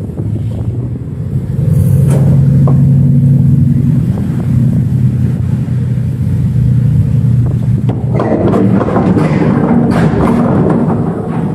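A vessel's engine drones steadily under wind buffeting the microphone. The drone is strongest from about two seconds in to about eight seconds in, after which rougher wind and water noise take over.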